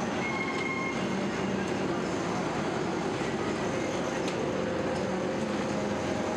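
Motor-driven roller-head mug forming machine and workshop machinery running steadily, a continuous mechanical din as clay mugs are pressed in their moulds.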